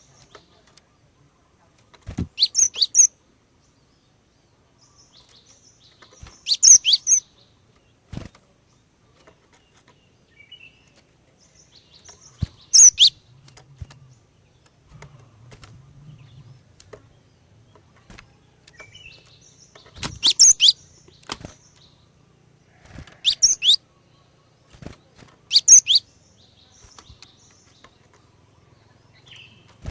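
Female cinereous tit (glatik batu) calling in short bursts of high, sharp chirps, about six bursts a few seconds apart.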